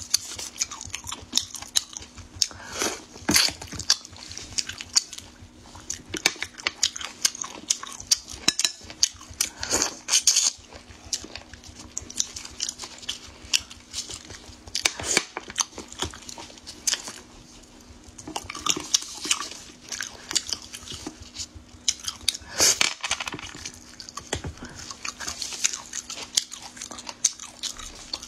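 Chewing and mouth sounds of someone eating spicy, broth-soaked sea-snail meat: many sharp crunchy clicks and wet smacks, with a few short lulls.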